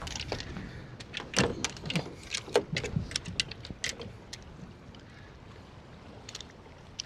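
A quick run of sharp knocks and clicks lasting about three seconds, then only a low steady background.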